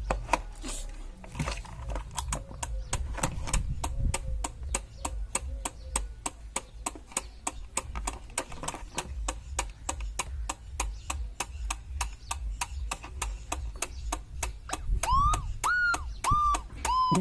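Horn cut-out relay clicking steadily, about four clicks a second. Near the end the horn sounds in four short beeps, each rising and falling in pitch.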